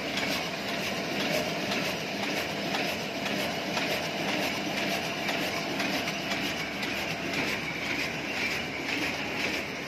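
DGM automatic die-cutting machine with stripping, running at about 7,000 sheets per hour: a steady, dense mechanical clatter of rapid ticks as the sheets feed through.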